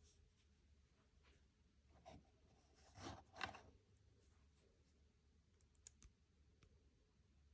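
Near silence with faint handling sounds: a soft click about two seconds in, then two short scraping rustles around three seconds in, and a tiny click near the end.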